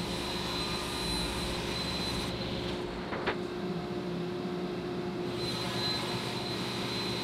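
Table saw running and ripping boards of 3/4-inch MDF: a steady machine noise with a high whine, and a single click about three seconds in.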